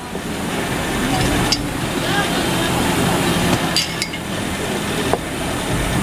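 Workshop noise: metal drawer pulls clicking and clinking now and then as they are handled on a worktable, over a steady low hum and background voices.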